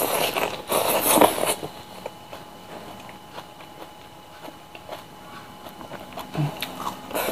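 Close-miked eating sounds: a handful of rice and stir-fried genjer pushed into the mouth by hand, loud for about the first second and a half, then quieter chewing with small scattered clicks.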